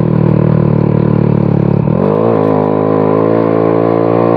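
Automatic scooter engine running while riding, a steady note that drops abruptly about two seconds in and then climbs again.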